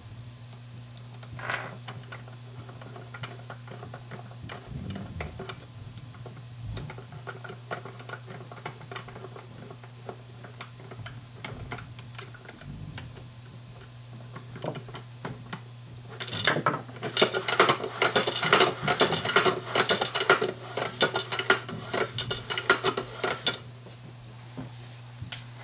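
Hands fitting small plastic and metal parts onto a curtain track with a screwdriver make light clicks and knocks. About two-thirds of the way in comes a loud, fast clattering rattle of hard parts that lasts about seven seconds.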